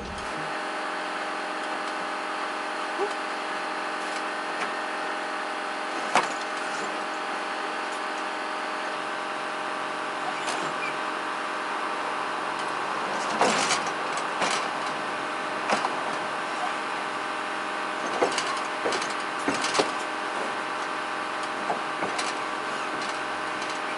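A steady, unchanging hum with scattered sharp knocks and clunks, about a dozen, from a quad being worked upright in a pickup's bed.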